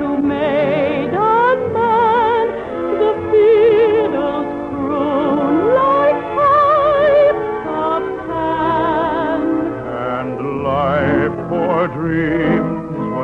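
Operatic-style singing with wide vibrato over a studio orchestra playing a waltz, on an old radio broadcast recording. The voices hold long notes, with a few upward slides between them.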